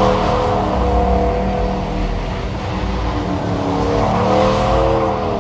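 Truck engine running hard, its pitch rising about four seconds in and starting to drop near the end.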